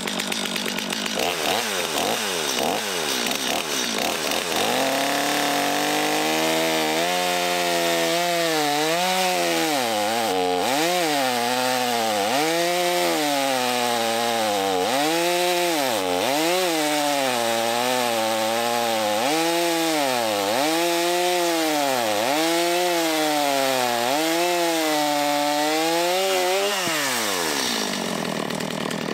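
Stihl MS250 two-stroke chainsaw with a 16-inch bar and a normally tensioned chain, cutting through hard pin oak. After a few seconds of revving it runs at full throttle, its pitch sagging and recovering over and over as it works the cut. Near the end the throttle is released and the engine falls away toward idle.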